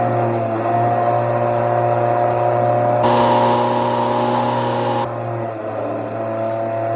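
Vacuum cleaner running with a steady motor hum. In the middle comes a louder rush of air for about two seconds, then the sound settles back slightly quieter.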